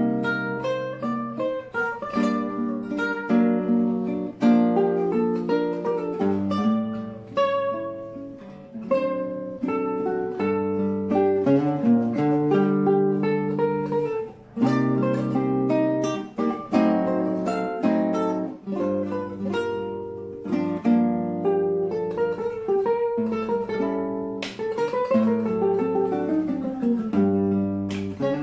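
Solo nylon-string classical guitar, a melody plucked over a bass line and chords, with one short break about halfway through.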